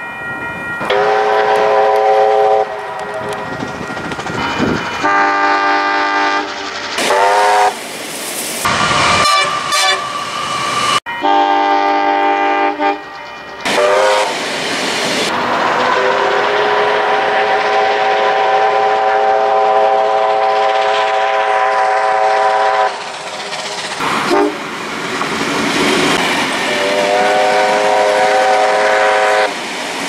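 Steam locomotive chime whistles sounding a series of blasts, each several notes at once, the longest held about seven seconds. Under them runs the rumble of the passing train.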